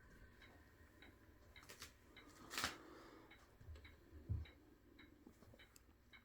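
Faint, scattered clicks and light handling noises of small objects being worked by hand, with a brief louder rustle about two and a half seconds in and two soft thumps a little later.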